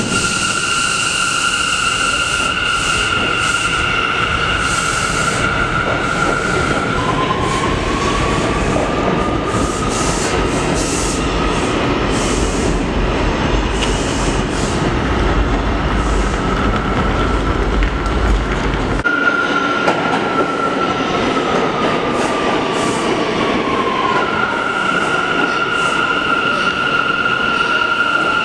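New York City Subway trains in an underground station: a high steady whine, then a whine rising in pitch over rumble and the clatter of wheels as a train pulls out. After an abrupt change, another train's whine falls in pitch as it brakes into the station, then holds steady.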